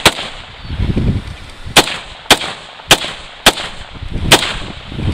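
Semi-automatic rifle firing from a 75-round drum magazine. There are six sharp shots at uneven intervals: one right at the start, a pause of nearly two seconds, then five more about half a second to a second apart.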